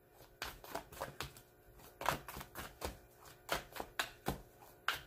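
A deck of Spirit Animal Oracle cards shuffled by hand: a string of soft, sharp card slaps and flicks, about three or four a second, unevenly spaced.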